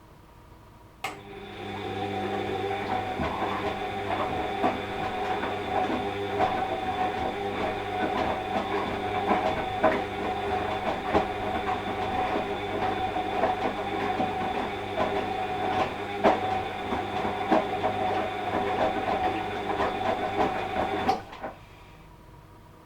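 Washing machine drum motor starting about a second in and turning at a steady speed, with a steady hum and whine plus irregular knocks and clicks from the load in the drum. It cuts off abruptly near the end.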